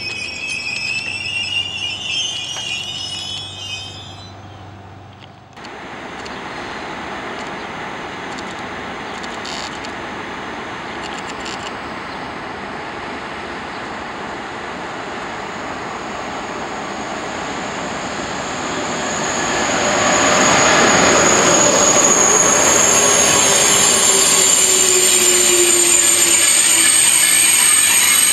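A TGV Lyria Euroduplex double-deck high-speed trainset runs along the platform. Its rumble grows louder, then stays loud and steady as the cars go by, with high steady tones above it and one slowly falling tone near the end. In the first few seconds a regional railcar's wheels squeal, fading before a sudden cut.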